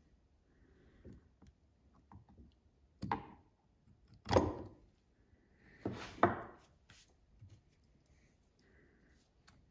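Needle-nose pliers clicking and scraping against a chainsaw piston as a circlip is worked into the wrist-pin groove: faint small taps and several sharp metallic clicks, the loudest about four and six seconds in.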